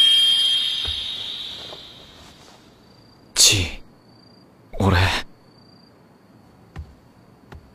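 Animated-film sound effect: a hiss with a high ringing tone, fading away over the first two seconds or so. Then a young man's voice says two short, breathy words, followed by a few faint ticks.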